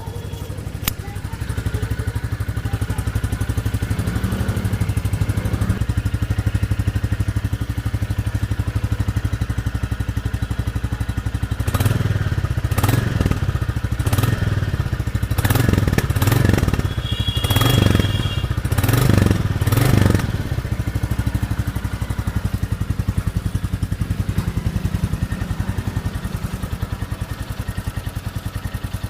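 Royal Enfield Bullet 350 single-cylinder engine idling on its stock exhaust with a steady low thump. From about twelve to twenty seconds in, the throttle is blipped about eight times in quick succession before it settles back to idle. Heard through an action camera's built-in microphone.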